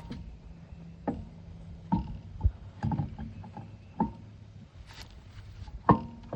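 Scattered knocks and clunks from tools and car parts being handled, about six over several seconds, with a faint steady hum underneath.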